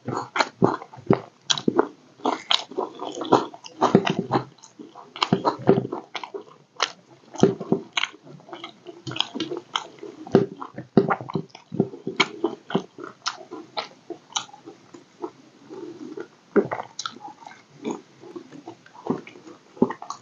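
A person eating egg curry with roti close to the microphone: steady chewing with wet smacking and irregular clicking mouth sounds.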